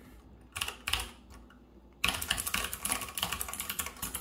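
MX-style mechanical keyboard switches, a mix of clicky blues with tactile and linear testers, typed on: a short cluster of keystrokes about half a second in, then fast continuous typing, a rapid clatter of key clicks, from about two seconds in.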